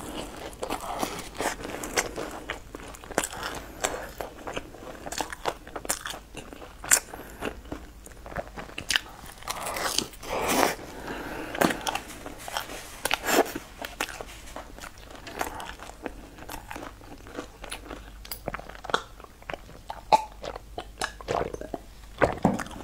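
Close-up eating sounds: a person biting and chewing a crusty, sugar-coated braided bread, with many small irregular crunches and wet mouth noises.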